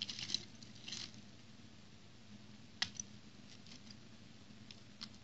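Small plastic building bricks being handled and pressed together: a quick clatter of clicks at the start and again about a second in, one sharp snap near three seconds, then a few light clicks, over a faint steady low hum.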